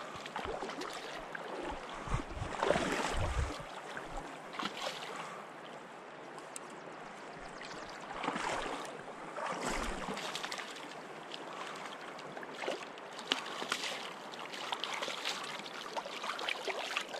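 A hooked Arctic grayling splashing at the surface of shallow river water, in irregular surges over the steady wash of the current. A low rumble comes about two to three seconds in.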